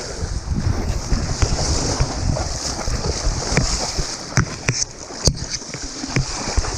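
Wind buffeting the microphone with a low rumble, over the steady hiss of surf, with a few sharp clicks about four and five seconds in.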